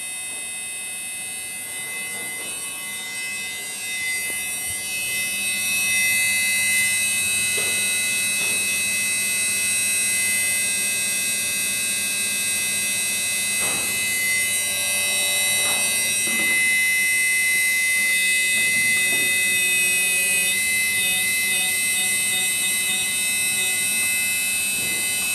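Haier front-load washing machine's drive motor running at full speed with its belt thrown and the drum pulley stuck, a steady high-pitched whine of several tones that builds over the first few seconds, with a few faint knocks. The repairer suspects worn motor bearings behind the noise and vibration.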